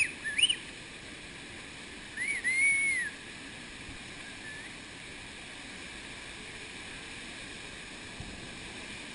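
Steady rush of water pouring over rock, with someone whistling: a couple of short whistled notes at the start and a longer rising-and-falling whistle about two seconds in, the loudest sound here.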